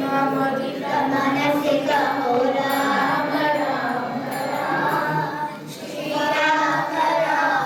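A choir of voices singing a song over music, with no dialogue.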